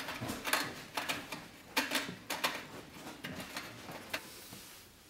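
Steel threaded rod being worked through the holes of a sheet-metal stove pipe to make the damper spindle, its threads clicking and scraping against the thin metal in irregular ticks that thin out near the end.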